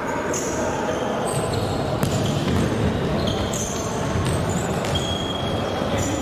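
Indoor futsal play: shoes squeaking briefly and repeatedly on the court floor, with the thud of the ball being kicked over a busy background of players' shouts and hall noise.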